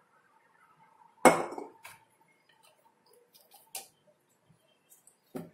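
Glassware knocking and clinking on a counter: one sharp knock with a short ring about a second in, as a glass graduated cylinder is set down. A few lighter clicks follow while a small glass bottle is handled.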